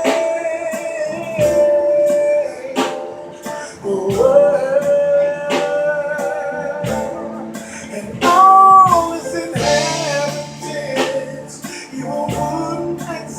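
Music: a song with a singer holding long, wavering notes over guitar chords and regular drum hits.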